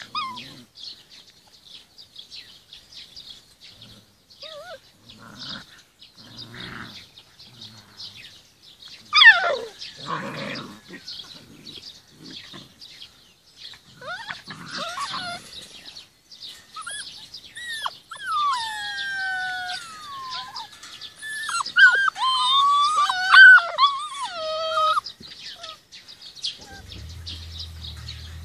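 Young Rhodesian Ridgeback puppies whining and yelping as they play. There is a sharp, falling yelp about nine seconds in, then a run of high, sliding, wavering whines in the second half.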